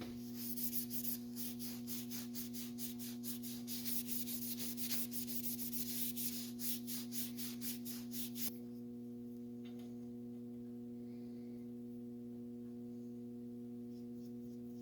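Emery cloth rubbing on a solid brass bar as it is polished to a sheen, in quick even strokes over a steady hum. The rubbing stops about eight and a half seconds in, leaving the hum alone.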